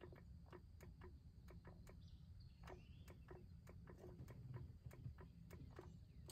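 Near silence with faint, sharp ticking at about three to four ticks a second, somewhat irregular, over a low background rumble.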